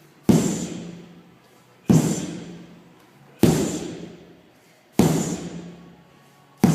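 A 10-pound sledgehammer striking down vertically in steady reps: five heavy blows about a second and a half apart, each dying away over about a second.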